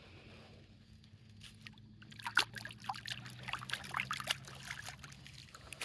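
Water splashing and trickling in many short irregular spurts, starting about two seconds in, over a steady low hum.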